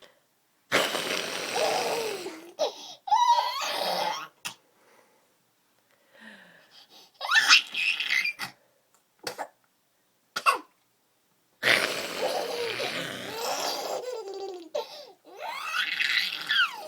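A small child laughing in several bursts, with pauses between them and a longer stretch of laughter near the end.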